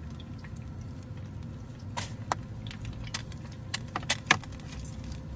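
Small plastic clicks and knocks as a plastic spice-rack box is handled and set down on a table, several taps from about two seconds in, the loudest near the end, over a steady low rumble.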